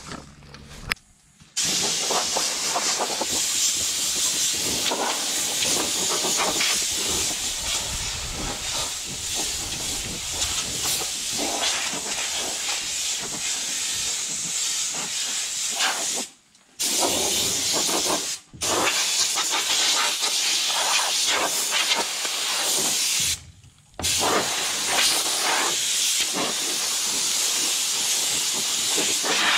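Compressed-air blow gun hissing in long blasts, blowing dry grass and debris off the steel deck of a bush hog rotary cutter. The hiss starts about a second and a half in and stops briefly three times.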